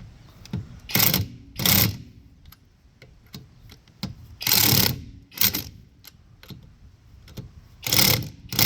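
Impact wrench rated at 1,200 ft-lb hammering lug nuts tight on a newly mounted car wheel, in short bursts two to a nut: one pair about a second in, one in the middle and one near the end.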